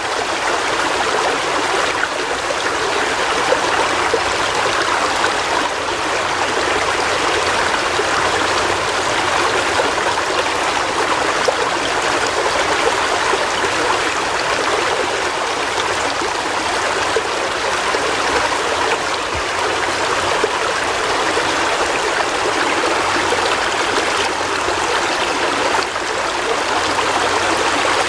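River water flowing steadily over rocks, a continuous rushing with trickling and splashing.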